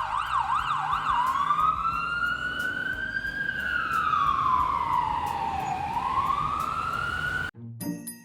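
Emergency vehicle siren: a fast yelp warbling about four times a second, then switching to a slow wail that rises, falls and rises again. It cuts off suddenly near the end.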